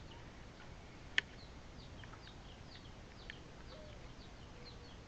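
Faint background birdsong: many short, high, downward chirps repeating throughout, with one sharp click about a second in and a softer one a little after three seconds.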